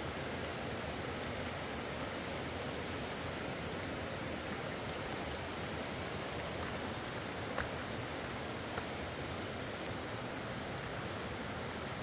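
A river rushing steadily, with two faint clicks about two-thirds of the way through.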